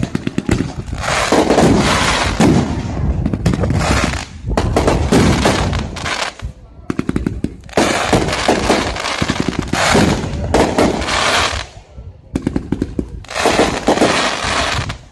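Aerial fireworks exploding in quick succession: loud bursts a second or two long, with stretches of rapid crackling pops between them.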